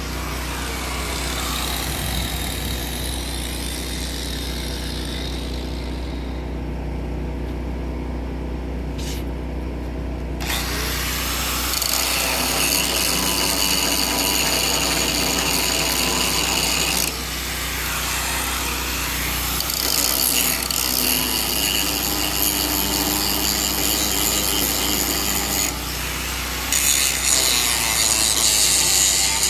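Rasping, scraping tool work on the steel of a rusty tank seam, over a steady low hum. The high hiss drops away for a few seconds about six seconds in, then comes back louder.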